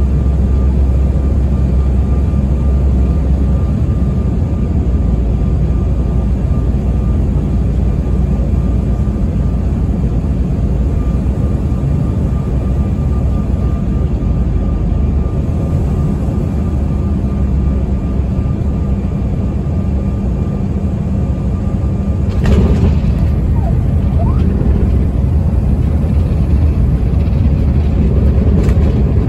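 Steady cabin rumble of a passenger airliner landing, engine and airflow noise with a faint steady whine. About two-thirds of the way through a sudden thump, the touchdown, and the rumble grows a little louder after it.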